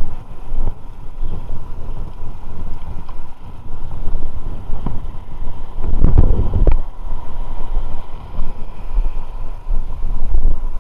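Wind buffeting the microphone in gusts, with a louder cluster of knocks about six seconds in.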